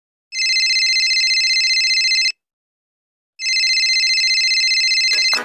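Phone ringing twice: each ring lasts about two seconds with about a second's pause between them, a steady high, rapidly pulsing electronic ring. It signals an incoming call.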